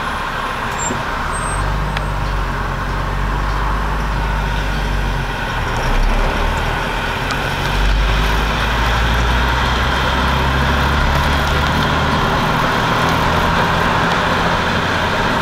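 Motor vehicle engine running with road noise; the engine's low hum steps up in pitch about six seconds in and again near eight seconds.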